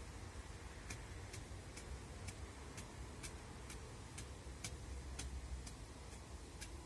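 Regular light ticking, about two sharp high clicks a second, starting about a second in, over a steady low rumble.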